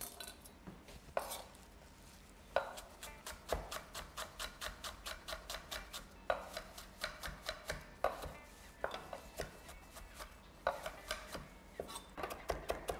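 Kitchen knife chopping fresh coriander on a wooden end-grain board: runs of quick, even knocks, about four or five a second, broken by short pauses.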